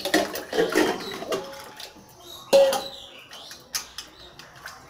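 Hand-washing cut fish pieces in a steel pan of water: water splashing and steel utensils clattering, with a loud metallic clank and a short ring about two and a half seconds in.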